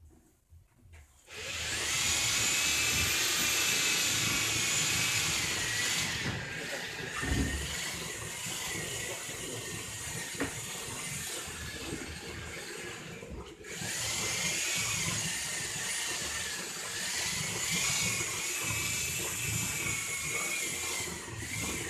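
An electric motor starts about a second in and runs with a steady high whine and rushing noise. Its pitch sags and wavers a few times. It cuts out for a moment just past halfway, starts again, and trails off near the end.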